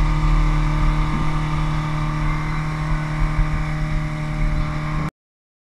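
Outboard motor running steadily at speed, with the rush of wind and churning wake over it; the sound cuts off suddenly about five seconds in.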